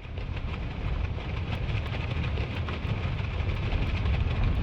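Steady heavy rain with a low rumble underneath and scattered small ticks of drops.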